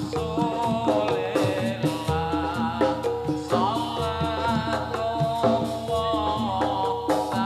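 Live Javanese jathilan gamelan music: drums and struck metal percussion keep a steady beat under a wavering melodic line.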